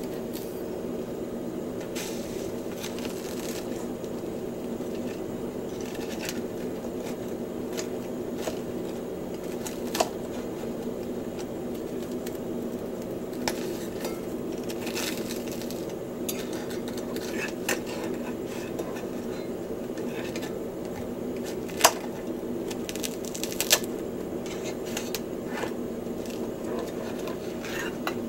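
Chopsticks clicking and scraping against a metal grill rack and a metal bowl as grilled mochi is lifted off, with a few sharp clinks standing out. Under them runs a steady low hum of several tones.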